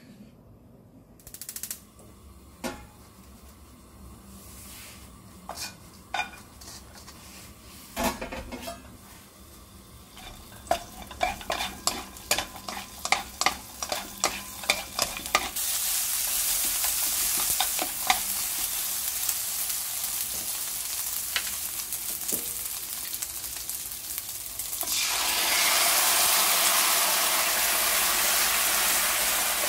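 A few scattered knocks of a spoon against a ceramic bowl, then a wooden spatula rapidly scraping and tapping on a nonstick frying pan as pieces of dried filefish fillet are stir-fried. About halfway through a steady sizzle of frying begins, and near the end it grows louder, with the red pepper paste sauce now in the hot pan.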